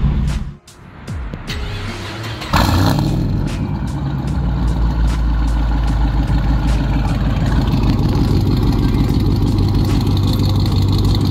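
A 2014 Chevrolet Camaro SS's 6.2-litre V8 catches suddenly about two and a half seconds in, then runs at a steady, deep idle through the exhaust. It is being started after a fresh oil change.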